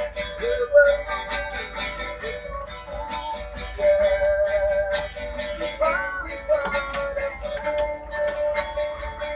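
Busker's music: a strummed guitar with a steady shaker rhythm and long held melody notes that bend in pitch.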